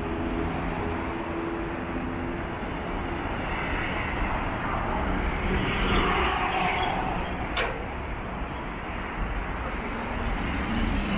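City street traffic at an intersection: a steady rumble of motor vehicles, with an engine hum that stops about two seconds in and a car passing in the middle. A single sharp click about seven and a half seconds in.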